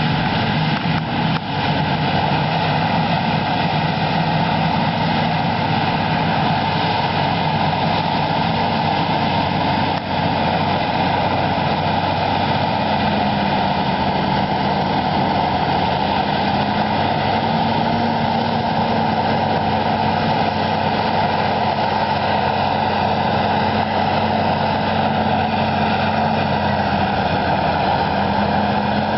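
Versatile 550 tractor's diesel engine running steadily under load, pulling a Cat 80 scraper; its pitch rises slightly about thirteen seconds in.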